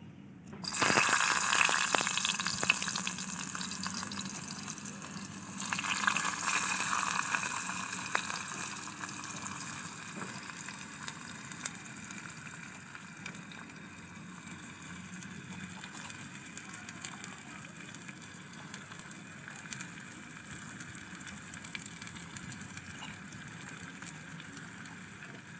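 Chopped raw mango pieces hitting hot oil and mustard seeds in a clay pot, sizzling loudly as they go in. The sizzle surges again about five and a half seconds in, then settles into a steady hiss.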